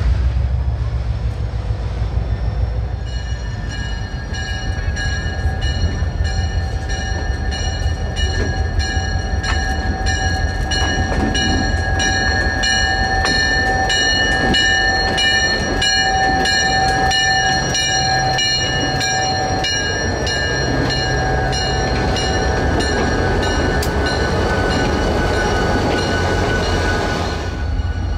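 Diesel locomotive rumbling at low speed as it rolls by, its bell ringing at about two strokes a second; the bell starts a few seconds in and stops abruptly near the end.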